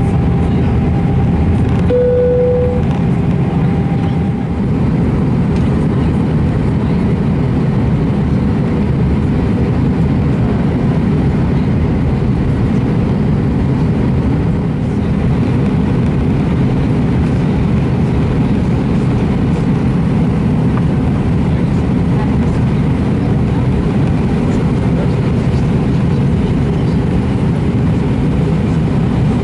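Airbus A320 cabin noise on approach: a steady roar of the engines and the airflow over the fuselage, heard from a seat over the wing. A short clear tone sounds about two seconds in.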